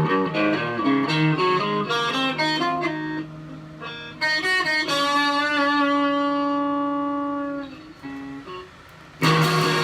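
Stratocaster-style electric guitar on its neck pickup, all knobs at full, played for a tone test: a run of picked single notes, then a chord picked out and left to ring for a few seconds. A few quieter notes follow, and near the end a loud strummed chord.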